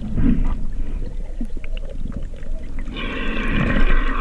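Underwater sound picked up through a camera housing: a low, muffled rush of water with scattered knocks, then from about three seconds in a hiss of bubbles and splashing water as the snorkeler nears the surface.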